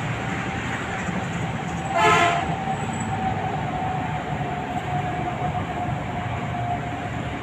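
A crow caws once, sharply, about two seconds in. Behind it is steady background noise with a long, steady tone running through it.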